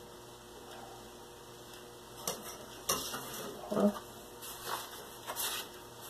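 Handling of a cut paper template on a workbench: quiet at first, then a couple of sharp clicks and taps, followed by short paper rustles as the sheets are picked up and moved.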